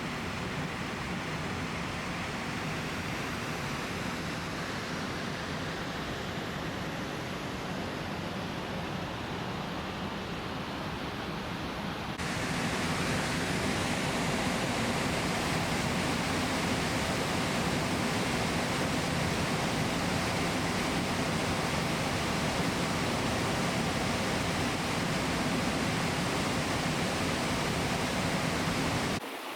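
Steady rush of water from a mountain stream's falls and cascades. About twelve seconds in it switches abruptly to a louder, brighter rush of water.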